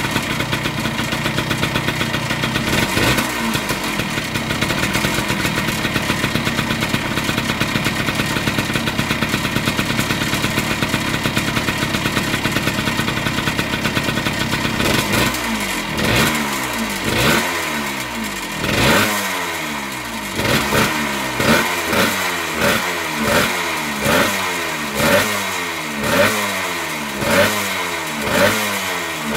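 1978 Yamaha DT100's single-cylinder two-stroke engine, freshly fitted with a new piston and rings, running at a steady fast-beating idle. About halfway in it starts being revved in quick blips, about one a second, each rising and falling in pitch. There is a rattle that the owner puts down mostly to the exhaust.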